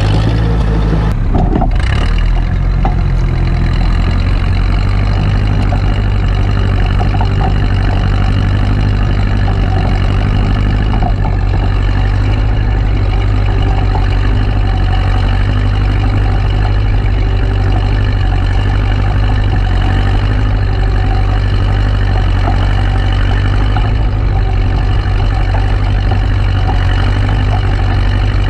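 1956 Case 300 tractor engine running steadily while pulling a moldboard plow. About a second and a half in there is a brief clatter and the engine's note changes, then it holds steady.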